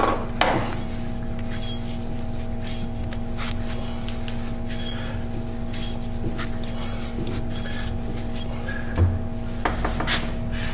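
Rusty AMC trunnion housing being twisted and worked up off its steel pin by hand, with faint metal rubbing and small clicks and a low thud about nine seconds in, over a steady electrical hum.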